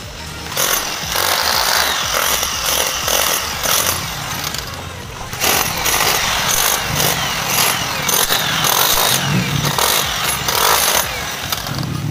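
Electric chipping hammer breaking up a concrete floor: rapid, steady hammering in long bursts, with a short break about five seconds in.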